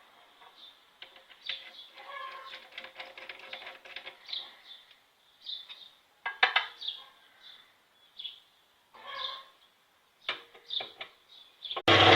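Scattered light clicks and short chirping squeaks. Near the end a workshop machine's electric motor switches on and runs loudly and steadily with a low hum.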